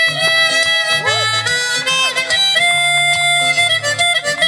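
Harmonica played live: long held notes with pitch bends that swoop up and back down, over steady low sustained notes.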